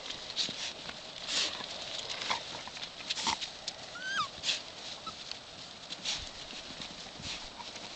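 Dogs scuffling in snow: irregular scraping and crunching as a dog rolls on its back with puppies scrambling over it. About four seconds in comes a short, high whimper.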